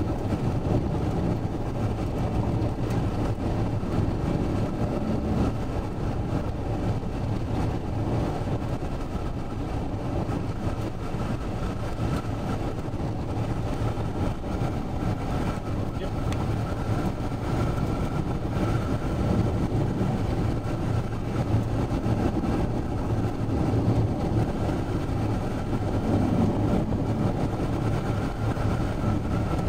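Vehicle driving on a dirt road: steady tyre and road noise with a low engine hum.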